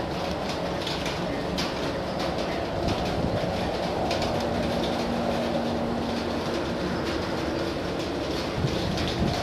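A large oil tanker's engine running as the ship passes: a steady low rumble with irregular knocks, and a hum held for a couple of seconds in the middle, over water washing along the hull.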